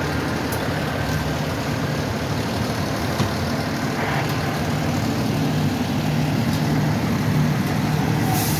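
A large vehicle's engine idling with a steady low hum, over a background of street traffic.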